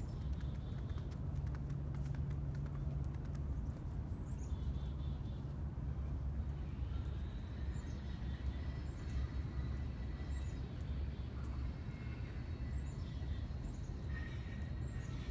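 Outdoor ambience: a steady low rumble with small birds chirping now and then, the chirps more frequent in the second half.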